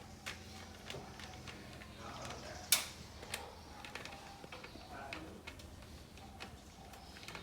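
Screwdriver clicking and tapping on the terminal screws of an earth leakage circuit breaker (ELCB) as they are unscrewed, a scatter of small clicks with one sharper click nearly three seconds in.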